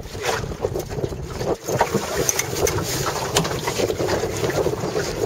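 Squall wind gusting and buffeting the microphone aboard a small Miracle sailing dinghy, a steady rushing with a low rumble and scattered short knocks.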